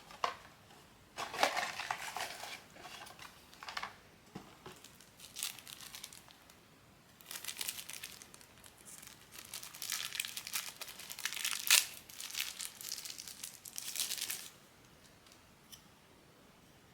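Blind-box packaging being opened by hand, crinkling and tearing in several irregular bursts, the longest stretch in the middle, stopping a couple of seconds before the end.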